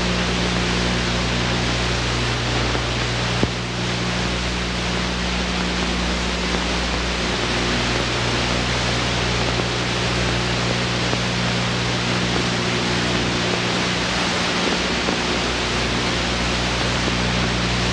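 Steady hiss with a low electrical hum under it: background noise of a deteriorated 16mm film soundtrack in a VHS telecine transfer, with no programme sound. A single click about three and a half seconds in.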